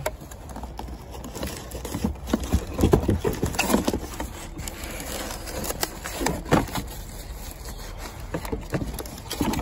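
Cardboard packaging of an amplifier box being handled: flaps and an inner cardboard insert knocked, scraped and rustled in irregular taps, busiest from about two to seven seconds in.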